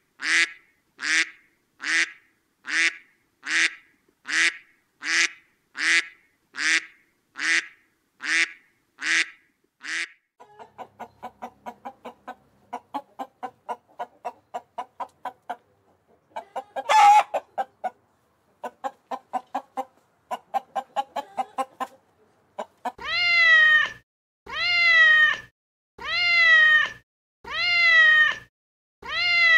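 A series of animal calls in three runs. First come about fourteen short, evenly spaced calls. Then a fast run of short pulses, with one louder cry about halfway through. Last come long calls, each falling in pitch, about one every second and a half.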